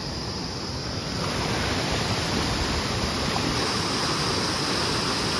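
Mountain stream rushing over rocks, a steady rush that grows louder about a second in.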